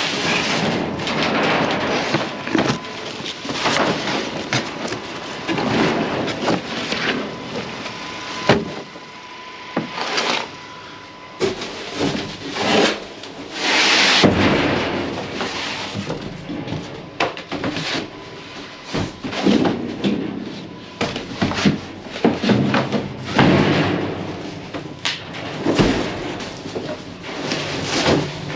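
Cardboard boxes packed with canvas paintings being shoved and lifted around inside a metal dumpster: irregular scraping and rustling, with sharp knocks against the dumpster now and then.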